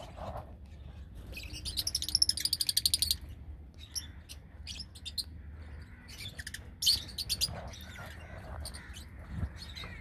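A flock of lovebirds chirping over a low steady hum. About a second in comes a rapid run of high, shrill chirps lasting nearly two seconds, followed by scattered short chirps and a brief cluster about seven seconds in.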